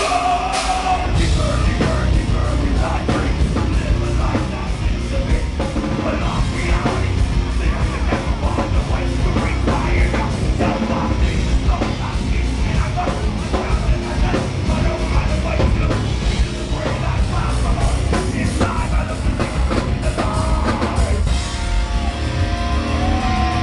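Live nu-metal band playing loud: distorted electric guitars and bass over a fast, steady drum-kit beat, with some singing. Near the end the drumming thins out into longer held chords.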